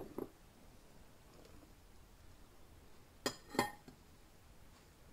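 Chopped carrots tipped into a ceramic slow cooker crock: a small click at the start, then two sharp knocks close together a little over three seconds in.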